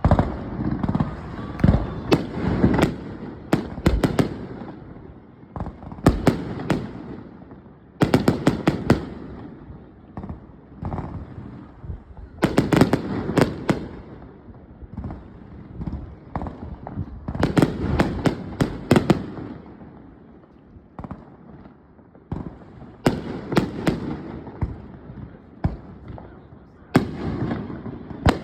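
Fireworks going off in waves: clusters of sharp crackling reports and booms every few seconds, each followed by a low rumbling echo.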